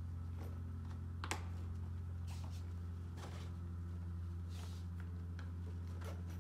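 A few scattered small clicks and rustles as the straps and buckles of a roll-up rescue stretcher are handled, the sharpest click about a second in, over a steady low hum.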